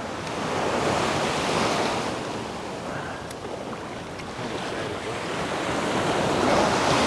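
Wind blowing across the microphone over small waves lapping in shallow bay water, a steady rush that swells about a second in and again near the end.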